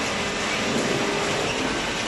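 Cardboard baling machinery running: a steady, even mechanical noise with no distinct strokes or pauses.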